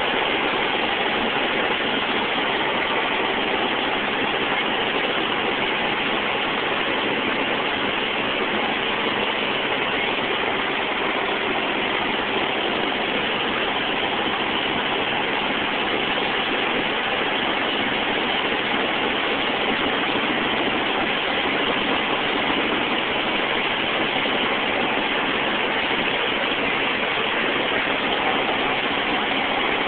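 Steady cabin noise of a light helicopter in flight: the engine and rotors make an even, unbroken rushing din with a faint steady hum underneath.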